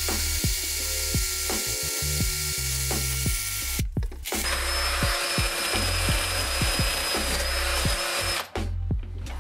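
Cordless drill spinning a wire cup brush against a metal vise body, stripping old paint and rust: a steady motor whir under a dense scratching hiss. It breaks off briefly about four seconds in, resumes, and eases off near the end.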